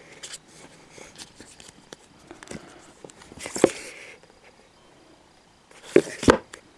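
Paperback manga being handled on a shelf: fingers tapping and rubbing along the book spines, a scraping slide about three and a half seconds in as a book is tipped out, and a few louder knocks near the end.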